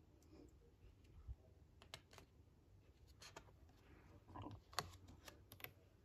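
Near silence, with faint scattered clicks and taps of a page being turned in a hardcover picture book.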